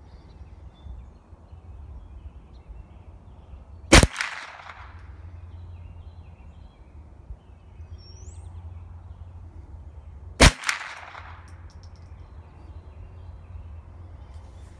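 Two .22 LR rifle shots from a Ruger 10/22 Takedown, about six and a half seconds apart, each a sharp crack followed by a short echo.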